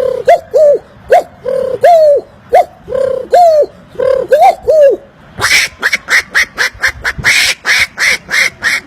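A man imitating animal calls with his mouth. First comes a quick run of short, arching calls, then about five seconds in a faster series of higher, harsher calls.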